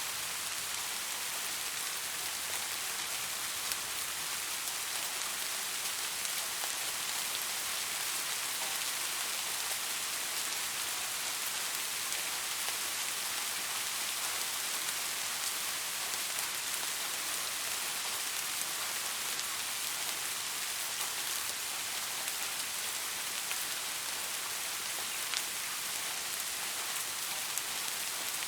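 Soft steady rain falling, an even hiss with the patter of individual drops striking a surface.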